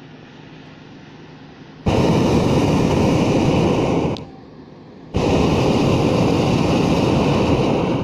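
Hot-air balloon's propane burner firing in two loud blasts of about two to three seconds each, a second apart. Each blast starts and cuts off abruptly.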